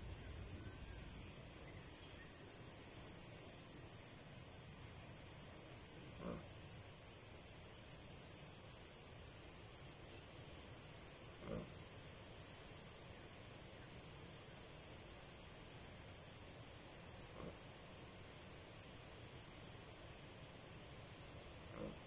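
Steady, high-pitched chorus of insects, a little quieter from about halfway through. A few faint, short knocks sound at intervals beneath it.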